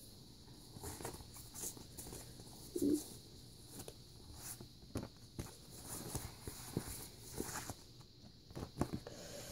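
Irregular soft knocks, taps and rustles of handling, as paper sheets or cards are moved about on a carpeted floor, with one brief, louder low sound about three seconds in.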